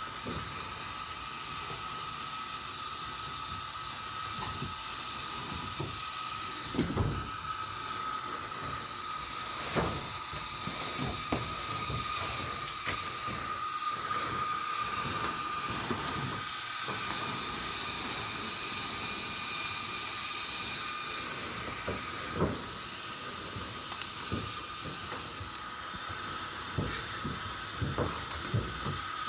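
A steady hiss with a steady whine under it, broken by scattered knocks and bangs during the tear-out of a furnace.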